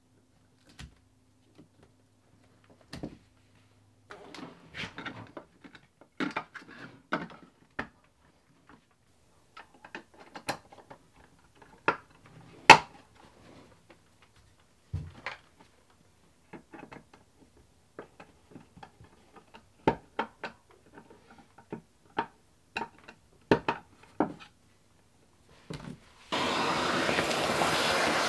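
Scattered clicks, taps and knocks of hands working wires and screwing a receptacle into a wall box, then a vacuum cleaner switched on near the end and running steadily.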